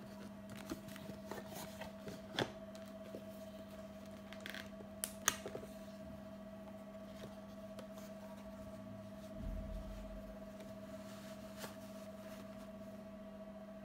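Hands handling a cardboard watch box, its inner box and a suede pouch: scattered light clicks, taps and rustles, the sharpest a little over five seconds in and a soft thud near ten seconds, over a steady low hum.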